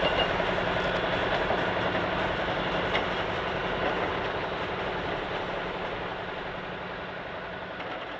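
Heavy engine running steadily with a low hum, slowly fading out.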